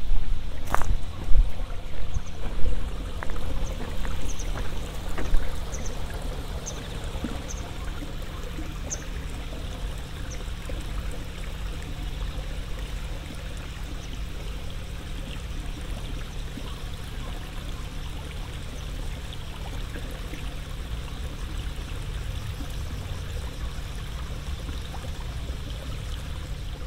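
Footsteps along a field path, about one and a half a second, for the first six seconds or so, then a steady rushing hiss with faint, short high insect chirps.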